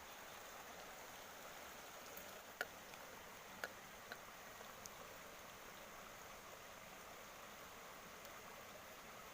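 Faint, steady rush of a small mountain stream's flowing water, with a few faint clicks about three to four seconds in.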